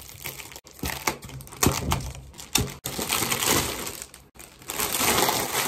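Thin plastic packaging bag crinkling and rustling as it is pulled open by hand and a white tray is drawn out. Sharp crackles come first, then a denser spell of rustling in the second half.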